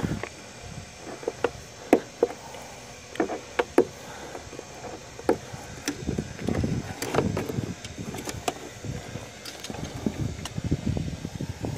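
Hand wire clippers snipping through a refrigerator's wiring: a string of sharp clicks, most in the first four seconds. From about six seconds in, the wire bundle is pulled and rustled, with a few more snips.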